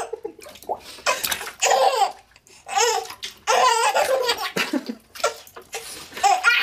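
A baby laughing in several short bursts, with brief pauses between them.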